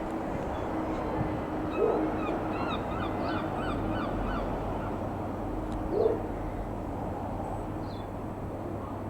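A bird calling: a quick run of short repeated chirps about two seconds in, and two short louder calls, one about two seconds in and one about six seconds in, over a steady low background rumble.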